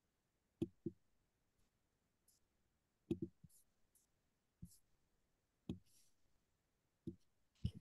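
Near silence broken by about eight sharp, irregularly spaced clicks.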